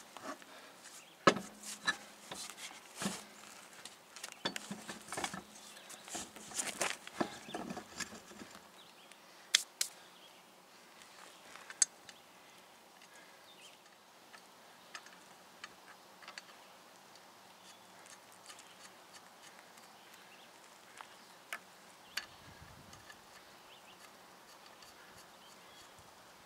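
Knocks and clunks of a Jeep Cherokee's rear wheel being worked onto its hub, over the first eight seconds or so. After that, only occasional light clicks as the lug nuts are started by hand.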